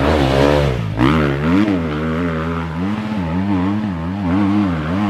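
Enduro dirt bike engine revving hard on a steep dirt hill climb, its pitch rising and falling over and over as the throttle is worked. In the second half the pitch swings up and down about twice a second.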